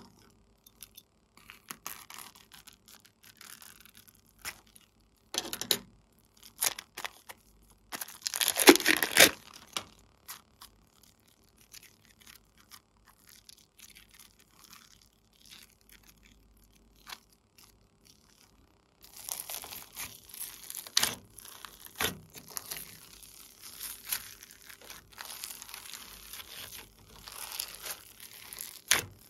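Slime squeezed and stretched by hand, with sticky clicks and crackles and one louder rustling burst about nine seconds in. From about nineteen seconds, denser crackling and popping as the slime is pressed onto small beads.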